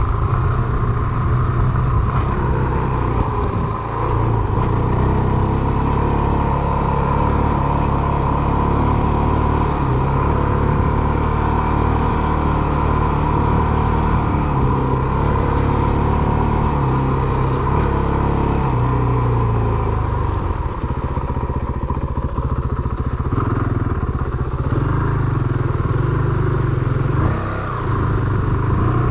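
Honda CRF450RL's 450 cc single-cylinder four-stroke engine being ridden, running steadily under throttle, its note dipping briefly about three times.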